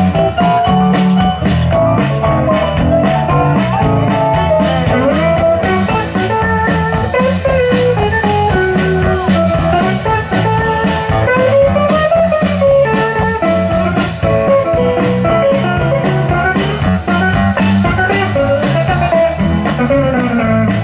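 Live blues band playing: a semi-hollow electric guitar plays a lead line with bent notes over Hammond SK1 organ chords and a steady drum beat.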